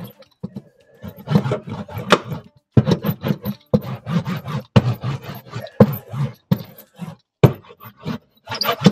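Foil-backed butyl sound deadening sheets being handled and pressed onto the metal inside a car's fender: irregular crinkling and scraping with sharp clicks.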